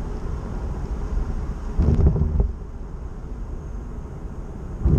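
A car driving on the road, heard from inside the cabin: a steady low rumble of road and engine noise, swelling louder for about half a second roughly two seconds in and again at the end.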